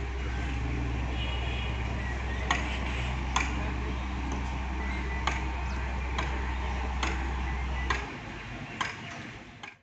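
A Daewoo wheeled excavator's diesel engine running with a steady low drone, with sharp clicks or clanks about once a second. The drone drops away abruptly about eight seconds in.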